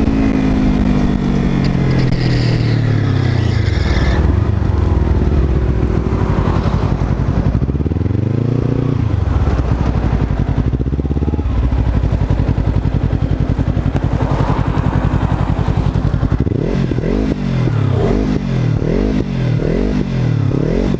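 Motorcycle engine from the rider's seat of a Kawasaki: revs falling as it slows down, a brief rise and fall about eight seconds in, then a steadier stretch. Near the end, stopped at the crossing, an engine is blipped repeatedly, the revs quickly rising and falling several times.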